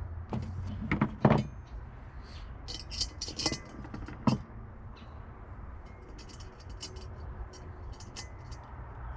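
Small metal grill hardware (leg screws, washers and wing nuts) clinking and rattling as the kettle grill's legs are fitted by hand. There are sharper knocks about a second in and again just after four seconds, over a low steady hum.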